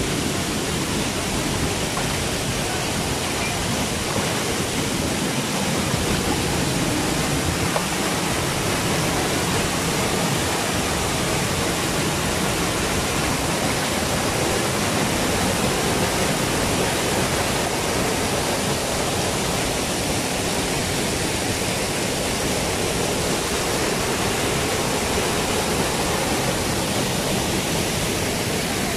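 Steady rush of a waterfall and a stream running over rocks.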